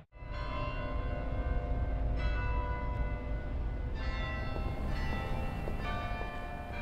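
Bells struck one after another, about five strikes a second or two apart, each ringing on and overlapping the next, over a low steady drone: the sombre opening of a thriller trailer's score.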